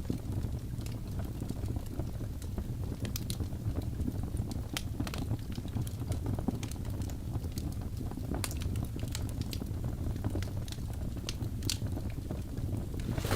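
Wood fire burning in a fireplace: a steady low rumble of flames with scattered sharp crackles and pops, and a denser burst of crackling at the very end.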